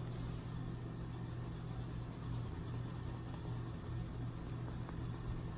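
Faint scratching of a soft-lead Derwent Lightfast coloured pencil shading on paper, over a steady low hum.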